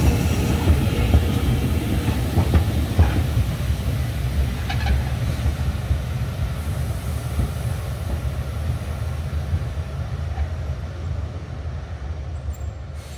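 Manx Electric Railway electric tram and its open trailer rumbling close by as they pull away, the low rumble fading steadily, with a few clicks from the wheels around two to five seconds in.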